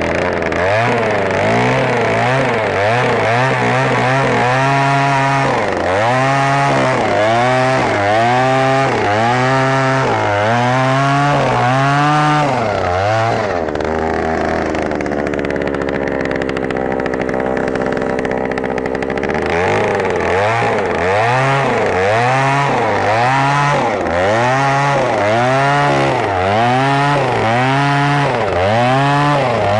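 Oshima 2PS earth auger's 54 cc two-stroke engine running hard while it drills into soil. Its speed surges up and down about once a second, with a steadier stretch of several seconds midway.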